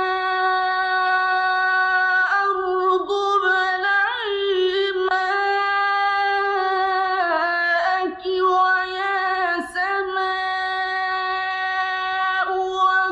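Qur'an recitation in the melodic mujawwad style: one male reciter's high voice holding long drawn-out notes with wavering ornamental turns, broken by brief pauses every few seconds.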